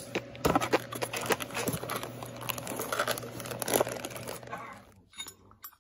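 Plastic bag and cardboard box crinkling and rustling as a hand rummages inside the box, with many small crackles and clicks. It dies away near the end.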